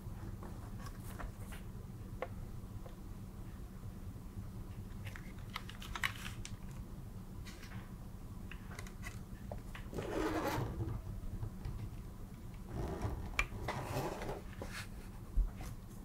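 A Haven TKL mechanical keyboard with an aluminium plate and Cherry-housed switches being handled: scattered single key clicks, two spells of rubbing and shuffling as it is moved around, and a dull thump near the end as it is set down.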